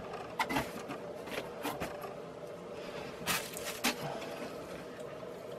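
Cardboard product box and packaging being handled and set down: short rustles and light taps, a cluster in the first two seconds and another a little after three seconds in, over a steady faint hum.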